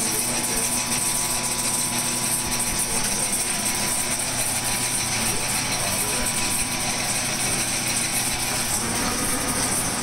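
Smith & Mills metal shaper running steadily as it machines aluminium, its gear drive and ratchet-and-pawl feed clicking.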